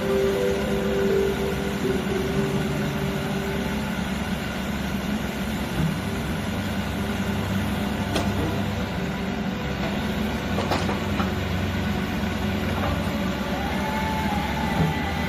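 Doosan DX55W wheeled excavator running steadily under load as its hydraulics lower and raise a heavy suspended load. A couple of sharp knocks come about eight and eleven seconds in, and a faint whine rises and falls near the end.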